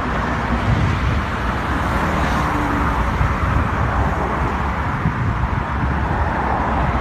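Street traffic noise with a heavy, steady low rumble.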